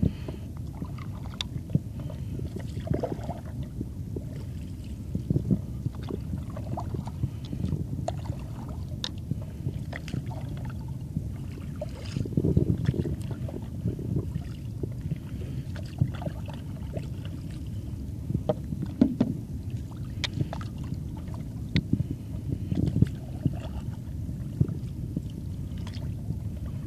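Stand-up paddleboard paddle strokes through calm sea water, with irregular splashes and drips every second or few seconds over a steady low rumble. Heard muffled through a waterproof phone case hung around the paddler's neck.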